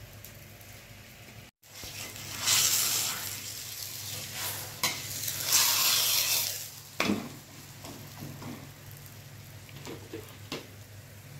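Sugar roti sizzling on a hot iron tawa in two loud bursts of about a second each as it is turned, with a few sharp clicks and scrapes of a metal spatula against the pan.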